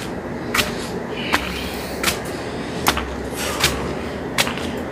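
Footsteps on hard ground, sharp clicks about every three-quarters of a second, over steady background noise.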